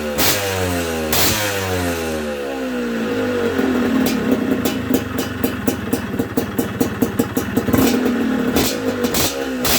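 Yamaha DT125 single-cylinder two-stroke engine, fitted with a Boyesen reed valve, running and being revved. It is held at higher revs from about three and a half seconds in to about eight seconds, with a rapid crackle, then drops back.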